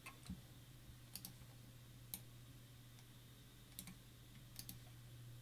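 Faint, irregular clicks of a computer mouse and keyboard, several single or paired clicks a second or so apart, over a low steady hum.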